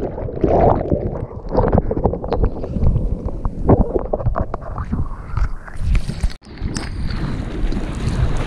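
Sea water splashing and sloshing against a camera held at the surface among breaking surf, with many irregular sharp splashes and wind buffeting the microphone. The sound drops out briefly about six seconds in.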